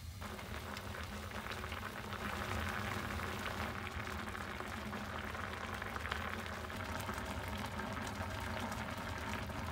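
Spicy tofu hot pot boiling over medium heat in a stainless steel pot, with a steady bubbling full of small pops.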